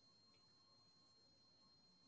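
Near silence: faint room tone with a steady faint electronic hum.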